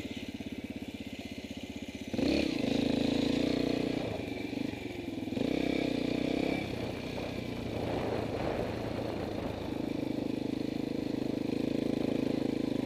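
Dirt bike engine running under the rider: a low, rapid putter at first, then the throttle opens sharply about two seconds in and it runs at higher revs, backing off briefly twice before pulling again near the end.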